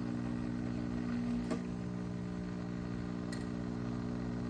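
HiBREW H10A espresso machine's pump humming steadily while pulling an espresso shot through a bottomless portafilter, with a couple of faint clicks.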